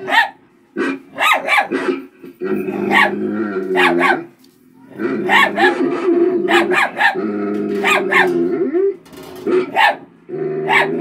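Puppy barking over and over at its own reflection in a mirror, short sharp barks with drawn-out growls between them.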